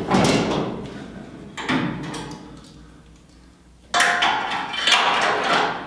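Metal fuel cell being test-fitted into a welded steel cage in a car's trunk floor: a metal clunk at the start, another just under two seconds in, then a longer scraping clatter of metal on metal about four seconds in as it is worked into place.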